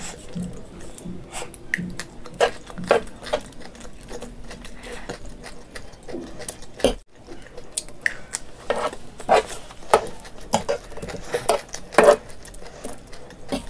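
A person eating noodles: cutlery clinking against a plate, with chewing, heard as irregular short clicks.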